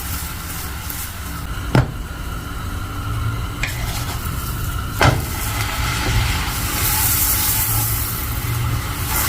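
A sandwich frying in a pan, sizzling steadily, with two sharp knocks, one about two seconds in and one about five seconds in.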